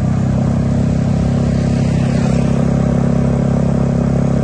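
A large bus's diesel engine running steadily with an even low hum; no horn sounds.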